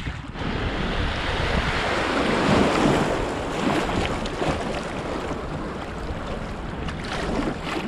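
Shallow creek water rushing and splashing over a riffle past a kayak's hull, loudest a couple of seconds in, with wind buffeting the microphone underneath.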